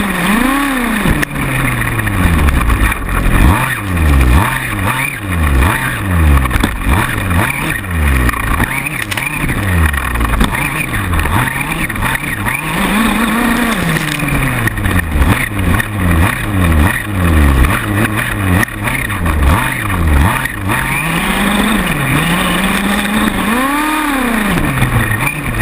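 Two-stroke engine of a 1/5-scale gas RC buggy, heard up close from on board, revving up and off again and again as it races. It gives quick short throttle blips about twice a second for much of the time, and a few longer climbs and falls later on.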